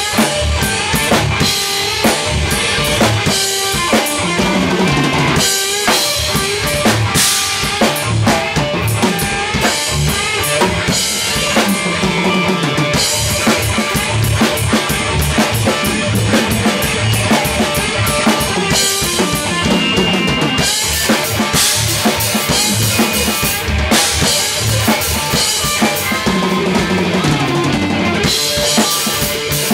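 A heavy rock band playing a song, with the drum kit to the fore: a steady beat of bass drum and snare under a dense, sustained wall of instruments.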